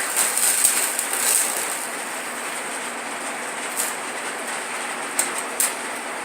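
Stick welder's arc crackling steadily while a bead is run, with a few sharp pops.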